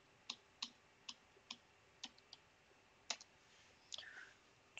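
Computer keyboard keys clicking as a short terminal command is typed and entered: about nine separate, quiet keystrokes at uneven spacing.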